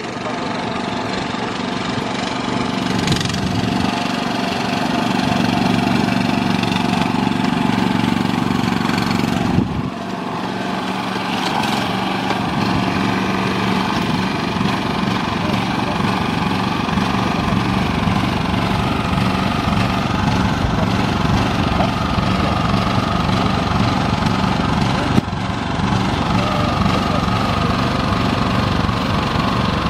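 Small engine of a rice transplanter running steadily, with a brief dip about ten seconds in.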